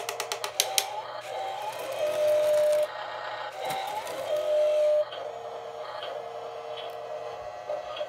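RC 1/14-scale skid steer loader's built-in electronic engine sound effect and small electric motors. A rev repeats about every two seconds, rising and then holding a steady tone. There is a run of rapid clicks near the start, and a lower steady whirr after about five seconds as the lift arms raise the bucket.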